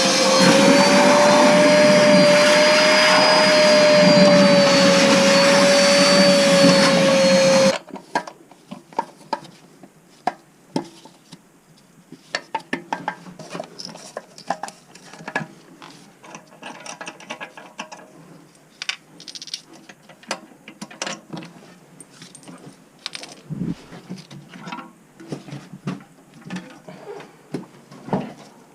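A small electric motor runs loud and steady with a wavering whine for about eight seconds, then cuts off suddenly. After that come scattered small clicks and knocks of hands working with tools and parts.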